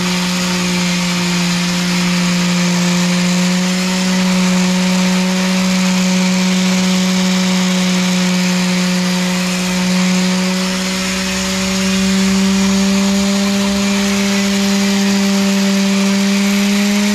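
Bosch SheetLoc palm sander running with 120-grit paper on steel hitch bars: a steady motor hum over the hiss of the sanding pad, the hum's pitch creeping slightly higher toward the end.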